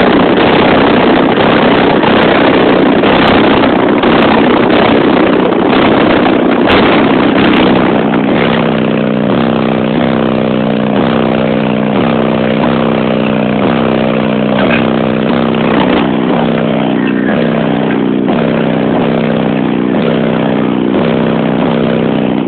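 Two new 12-inch Sundown Audio Z subwoofers on a Sundown 3500 amplifier playing bass very loud inside a car cabin while they are being broken in. The bass overloads the microphone into a distorted rumble, and from about eight seconds in a repeating pattern of stepped bass notes comes through.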